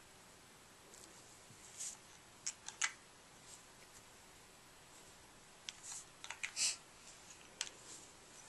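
Faint scattered clicks and brief scraping hisses of a small plastic bottle of Stickles glitter glue being opened and squeezed out onto a plastic paint palette, with a short cluster of them near the end.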